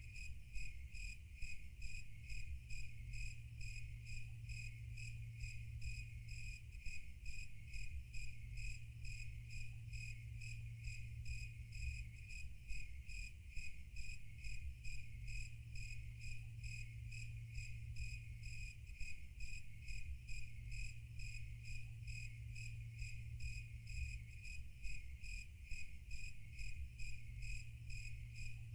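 Crickets chirping in a steady, even pulse, over a low steady hum.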